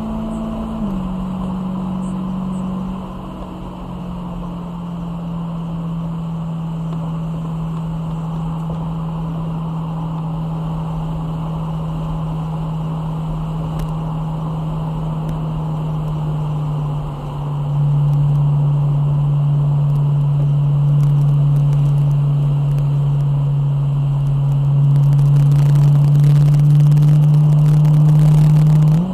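BMW E92 M3's V8 engine running at steady, moderate revs, its note holding one pitch for long stretches. It dips slightly in pitch near the start, grows louder about two-thirds of the way through and again near the end, then rises sharply in pitch just at the end.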